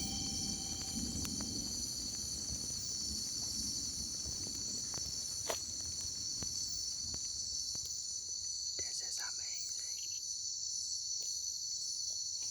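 Chorus of night insects in tropical forest, a steady high-pitched trilling in several layers.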